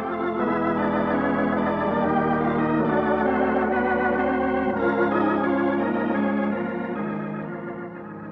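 Organ music bridge marking a scene change in a radio drama: sustained chords that shift every second or two, then fade out near the end.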